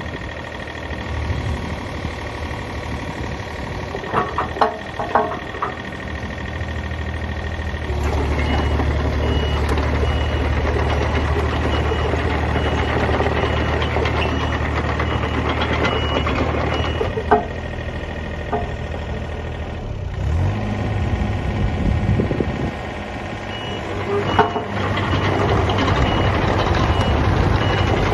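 Case excavator's diesel engine running, working harder for several seconds in the middle, with a repeating high-pitched warning beep and a few sharp metallic clunks from the machine.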